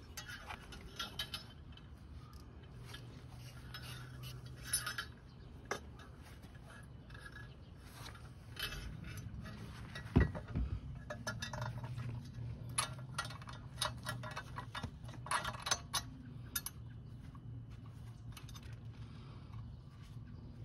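Light metallic clicks and clinks as an aftermarket exhaust head pipe is fitted to a pit bike's cylinder head and the flange nuts are threaded onto the exhaust studs by hand, with one sharper knock about ten seconds in.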